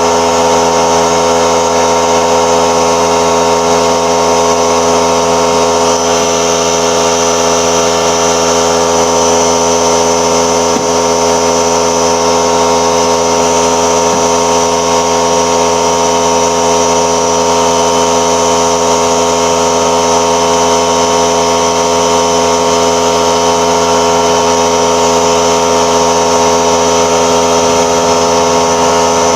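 A machine running steadily with a constant pitch and no change in speed, such as a motor-driven shop tool or pump.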